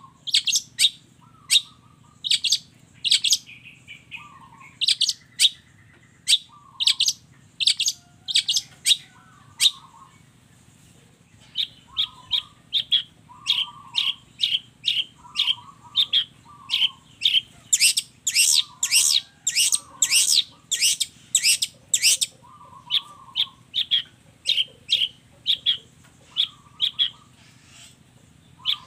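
Long-tailed shrike (cendet) singing a long run of short, sharp, high chirps, with softer lower warbled notes between them. The chirps come faster and louder for a few seconds past the middle.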